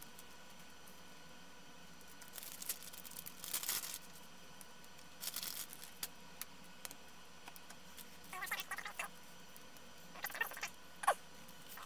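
Plastic anti-static component bags rustling and crinkling as they are handled, in several short bursts, with a few brief squeaky rubs near the end.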